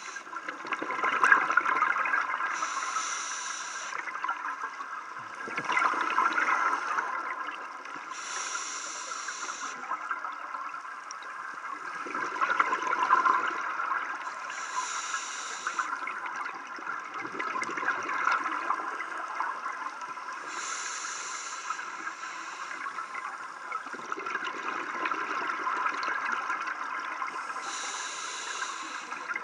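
Scuba regulator breathing underwater: a short hissing inhale about every six seconds, five in all, each followed by a long burst of bubbling exhaust bubbles.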